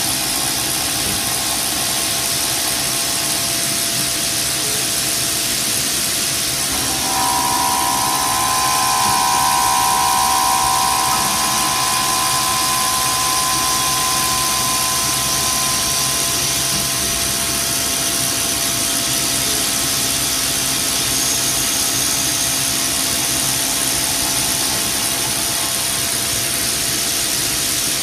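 A CNC milling machine's spindle runs as an end mill cuts linen phenolic, giving a steady machining noise with a hiss. A whining tone swells louder about seven seconds in and settles back around sixteen seconds.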